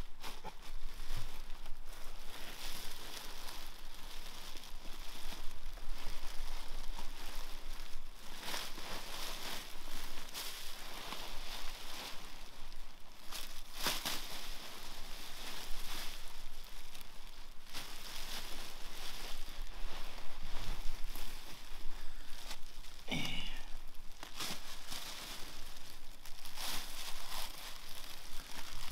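Crinkling and rustling of an orange foil-lined emergency bivvy bag as a person crawls into it and shifts about inside, with one sharper crackle about fourteen seconds in.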